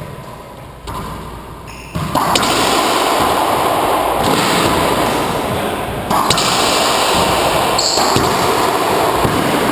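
A few sharp cracks of a racquetball struck by rackets and hitting the court walls. From about two seconds in they sit under a loud, steady rushing noise.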